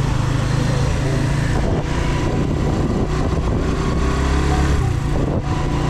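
A Suzuki GS 150 SE motorcycle's single-cylinder four-stroke engine running steadily while riding, with a constant rush of wind and road noise.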